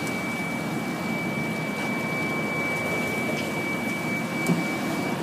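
Steady mechanical drone of a fishing charter boat's engines running, with a thin steady high whine throughout, a few faint ticks and one short knock about four and a half seconds in.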